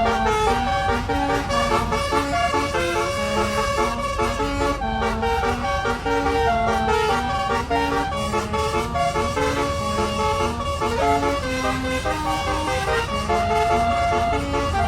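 Truck's musical horn playing a melody, note after note in quick succession, over the steady low rumble of the running engine.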